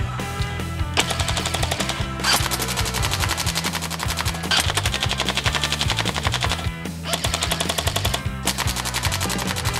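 Jing Gong Type 89 airsoft electric rifle firing long full-auto strings, its gearbox cycling as a rapid, even stream of shots, with short pauses between bursts. Background music plays underneath.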